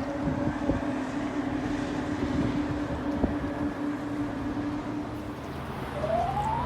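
A motor running steadily with a low, even hum, its pitch gliding upward near the end as it speeds up.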